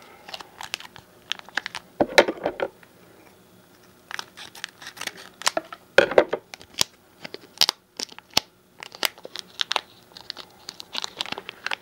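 Crinkling and tearing of a trading-card booster pack wrapper being worked open by hand, in irregular crackling bursts with louder clusters about two and six seconds in.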